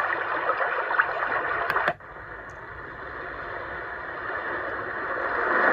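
White noise sleep machine playing its river track, a rushing-water noise through its small speaker. About two seconds in a click switches tracks, and the gentle sea wave track starts much quieter and swells slowly louder.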